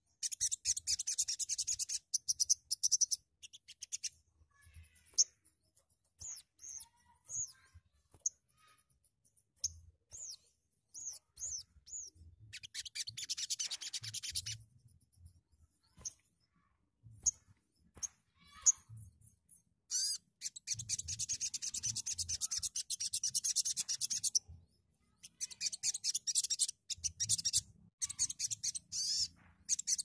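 Sunbird (sogon) song: several long, buzzy, high-pitched rasping trills, with a run of short sharp chirps between them in the first half.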